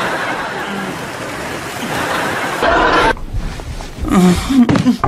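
Sitcom audience laughter, which cuts off suddenly about three seconds in. Brief vocal sounds follow near the end.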